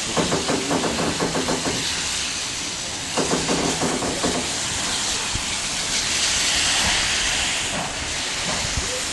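Steam locomotive BDZ 46.03 letting off steam in a steady hiss. Twice, at the start and again about three seconds in, a rapid pulsing beat joins the hiss for a second or two.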